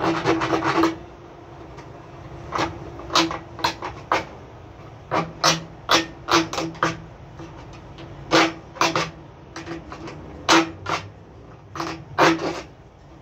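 Knife blade scraping and cutting into the rim of a PVC pipe in short, irregular strokes that come in clusters, shaving a notch into the pipe end.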